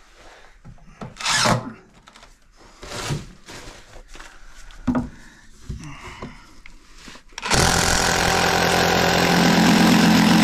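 A few knocks and scuffs, then about seven seconds in a cordless impact driver starts up suddenly and runs steadily and loudly, driving a long exterior wood screw through a block of wood into the floor framing.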